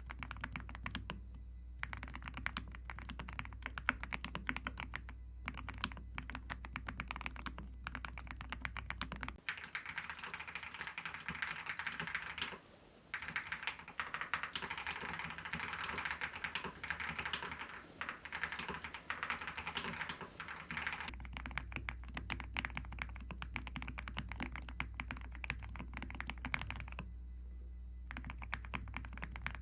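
Keys of a COX CF75 full-aluminium 75% mechanical keyboard being typed on continuously, a steady run of keystroke clacks. In the middle third the typing turns faster and denser, with a brief pause in it.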